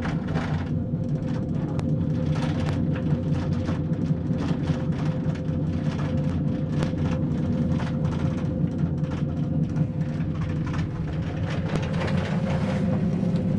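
Steady low rumble inside a cable-car gondola cabin as it rides along the cable, with a constant hum and scattered light clicks and rattles.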